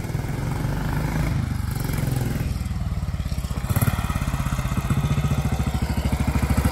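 1943 BSA WM20's 496 cc single-cylinder side-valve engine running as the motorcycle rides up and pulls in close, its exhaust beats steady and growing louder.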